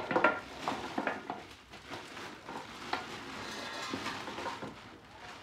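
A utensil stirring and scraping in a cooking pot, with irregular clinks and knocks, over food frying with a soft sizzle.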